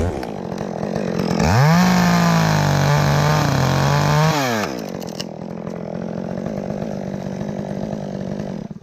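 Chainsaw revving up sharply about a second and a half in, running at full speed for about three seconds, then dropping back to idle.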